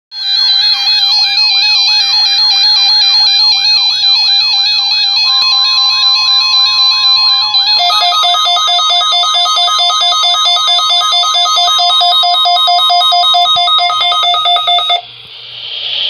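Several weather alert radios sounding at once: warbling siren alarms sweeping up and down about twice a second, with pulsing beeps, joined about five seconds in by the steady 1050-hertz NOAA Weather Radio warning alarm tone. About eight seconds in, the alarm pattern changes to faster sweeps and beeps, and all of it cuts off abruptly near the end.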